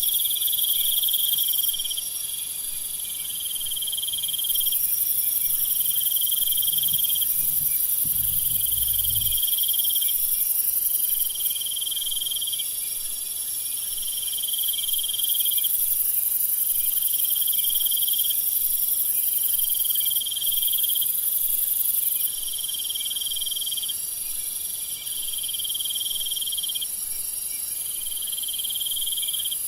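Nighttime jungle insect chorus: a dense, steady high-pitched shrill of crickets and other insects, over which a trilling call repeats in phrases of a second or two with short gaps between them.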